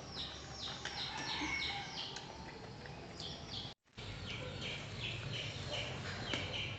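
Bird chirping over and over, short high chirps at about three a second, over a low steady background hum; the sound cuts out completely for a moment about four seconds in.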